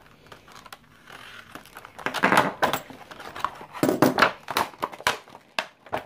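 A True Utilities Jackknife slicing open a stiff plastic blister pack, the plastic crinkling and crackling in several bursts, loudest about two and four seconds in.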